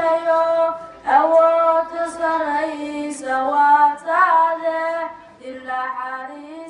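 A high voice singing a slow song without instruments, holding long, steady notes that move up and down.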